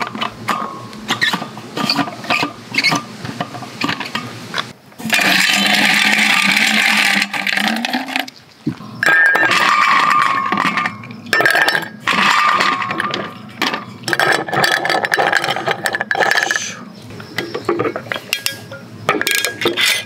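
Ice cubes dropped into and shifting in a glass mug, clinking sharply against the glass, which rings briefly after each hit. About five seconds in there is a steady rush of noise lasting a few seconds.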